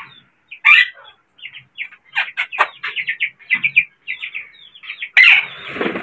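Caged Psittacula parakeets (ringnecks and Alexandrines) squawking in a quick run of short, high calls, with a louder, rasping burst about five seconds in.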